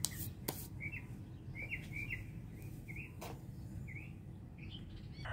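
A bird chirping in short, repeated notes, about ten chirps, with two sharp clicks, one about half a second in and one a little after three seconds in.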